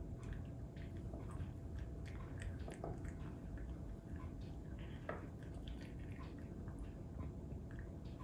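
Cat chewing and smacking on soft wet food: a scatter of small, quiet wet clicks over a steady low background hum.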